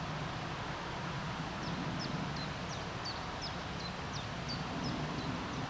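A small bird singing a run of about a dozen short, high notes, each sliding quickly downward, at about three a second, starting about a second and a half in. Beneath it runs a steady low rumble.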